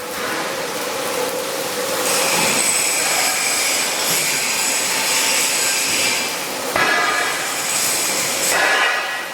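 Metalworking on a 6-inch carbon steel pipe weld: a loud, steady, harsh hiss that changes in tone about two seconds in and again twice near the end.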